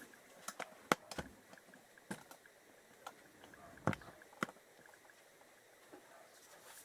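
Scattered light clicks and knocks of metal engine parts being handled while a gear is worked out of an opened motorcycle crankcase, about eight sharp taps with quiet between them.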